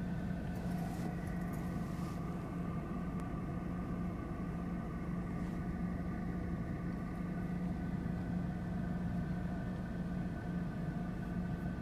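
Car engine idling with a steady low hum and a few higher steady tones, heard from inside the cabin.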